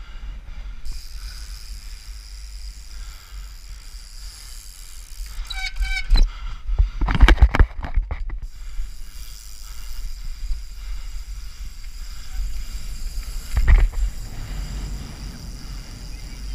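Trials bike being ridden, with wind buffeting the onboard camera's microphone as a steady rumble and hiss. A short squeal comes about five and a half seconds in, then a cluster of knocks and thumps from about six to eight seconds in, and one more thump near fourteen seconds, as the bike lands and hits the ground.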